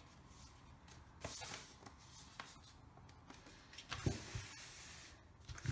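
Sheets of paper being handled: a brief rustle about a second in, then a soft thump as the paper is laid on the table and a longer rustle as hands smooth it flat.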